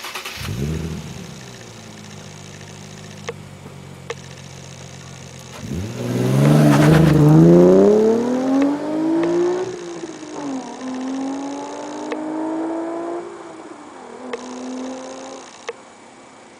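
Nissan VQ35HR 3.5-litre V6 exhaust through an Amuse titanium muffler. It starts with a quick flare of revs and settles to a steady idle. About six seconds in it is revved hard and let fall, then given a second, gentler rising rev, and it shuts off near the end.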